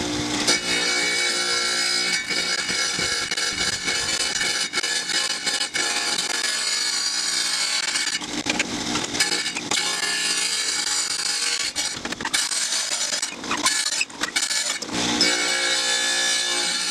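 Wet tile saw running, its diamond blade grinding through a glass beer bottle as the bottle is turned against it: a steady motor hum under a gritty hiss of glass being cut, dipping briefly a few times past the middle.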